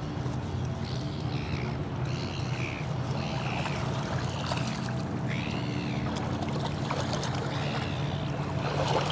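A boat's motor running steadily with a low hum, with a string of short, high, arching calls over it, roughly one a second.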